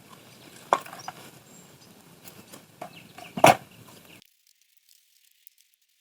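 Two sharp knocks, the second and louder one about three seconds after the first, among light clicks and handling noise; the sound then cuts off abruptly near the end.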